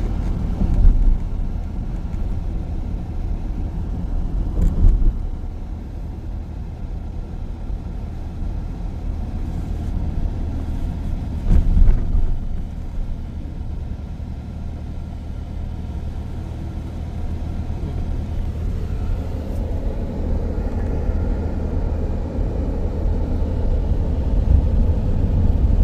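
Road and engine noise inside a moving van's cabin: a steady low rumble with a few louder bumps.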